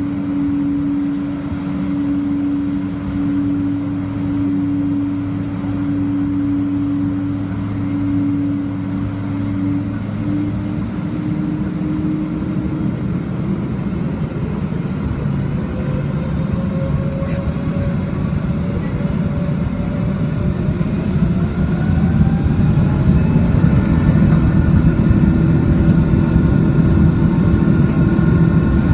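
Airliner's jet engines heard from inside the cabin: a steady hum at first, then a rising whine about halfway through as the engines spool up to takeoff power, growing louder over the last third.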